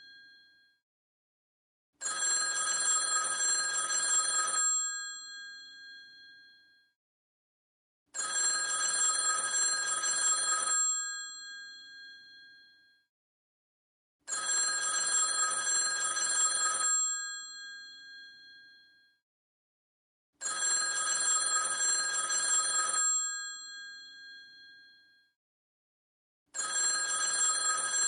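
Old telephone's bell ringing in a repeating cadence: about two and a half seconds of ringing, then a pause of about three and a half seconds while the ring dies away. The cycle comes about every six seconds, five times.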